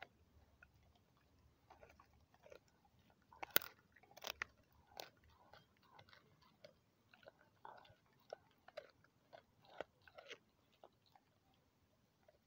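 A dog chewing and biting a raw kangaroo spine, with irregular crunches of bone. The loudest crunch comes about three and a half seconds in, and the chewing thins out in the last couple of seconds.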